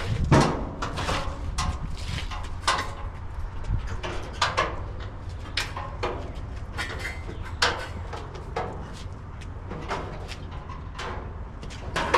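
Irregular clunks, knocks and scrapes of a bare steel car body being shifted by hand on its chassis and dolly, with the loudest knocks just after the start and near the end, over a steady low rumble.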